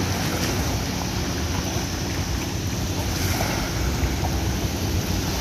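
Wind buffeting the microphone with a steady low rumble, over small waves washing onto a sandy shore.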